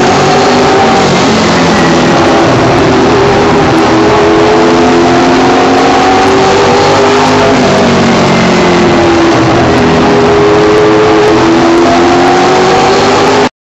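Late model race car's V8 engine at racing speed, heard from inside the car. The note falls and then climbs again twice as the driver lifts and gets back on the throttle. The sound cuts out for an instant just before the end.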